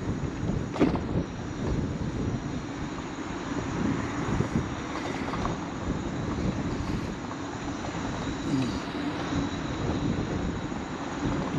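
Wind buffeting the microphone during a scooter ride on a paved road, with a steady low hum from the moving scooter underneath and a single sharp click about a second in.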